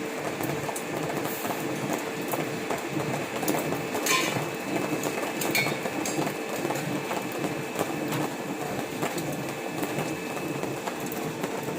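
Portable line boring machine running, its cutting bar turning in an excavator bucket's pin bore with a steady hum and continuous rattling clatter, and a brief sharper scrape about four seconds in.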